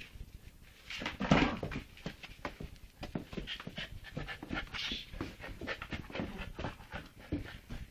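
A dog panting quickly and steadily, with a louder outburst about a second in.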